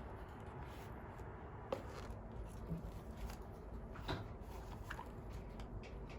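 Faint handling noises: a few light clicks and taps, the clearest about two seconds and four seconds in, over a low steady room hum.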